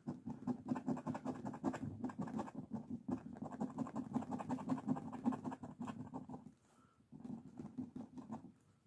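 Rapid, steady scratching as the coating is rubbed off a Slingo Trio Sizzler scratch-off lottery ticket, many quick strokes with a brief pause about two-thirds of the way through.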